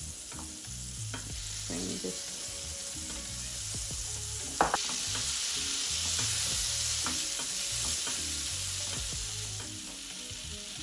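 Butter melting and sizzling in a hot frying pan. A sharp click comes about halfway through, after which the sizzling gets louder.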